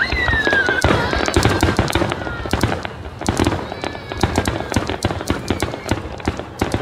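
Fireworks display: a rapid barrage of overlapping aerial shell bursts, bangs and crackling. A whistle falls in pitch over the first couple of seconds.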